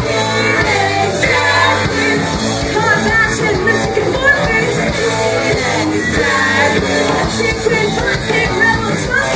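Live rock band playing: electric guitar, bass and drums under a woman's lead vocal sung into a microphone, heard loud through the venue's PA from within the audience.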